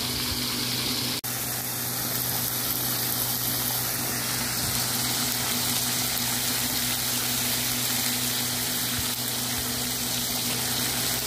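Beef steak pieces sizzling steadily on a large flat griddle, over a steady low hum. The sound cuts out for an instant about a second in.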